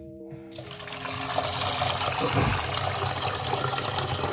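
Kitchen tap running, water pouring steadily into a pot. It starts about half a second in.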